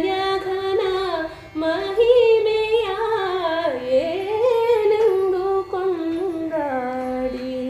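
Singing of a Kannada Haridasa devotional song in Carnatic style: one long, ornamented sung line that slides up and down between held notes, with no clear words.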